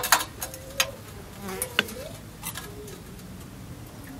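A few sharp metallic clinks from the steel teapot and metal tea tray, with a faint wavering buzz between them.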